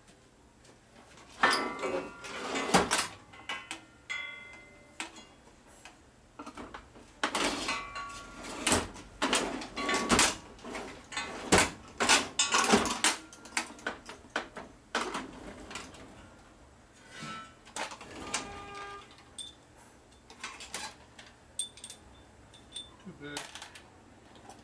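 Small loose metal hardware clinking and clattering as it is rummaged through, with knocks from steel storage drawers. The clatter comes in repeated bursts of sharp clicks, some of them ringing briefly.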